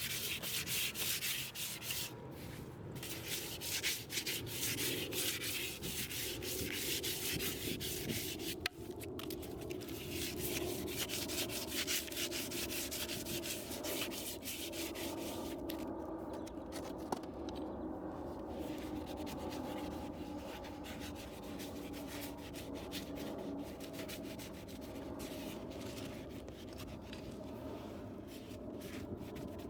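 Continuous fast abrasive scraping and rubbing of a tool against a horse's hoof, like sanding, with a faint steady hum underneath.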